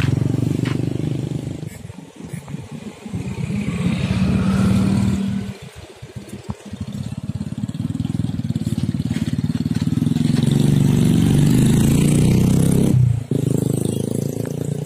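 Small motorcycle engines running as motorbikes ride across a railway level crossing, their pitch rising and falling as they pass. The sound cuts off abruptly near the end.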